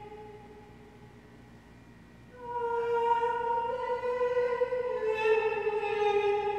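A bowed string instrument playing long held notes: one note fades away, and after a short quiet gap a new note comes in about two and a half seconds in and slides slowly down in pitch.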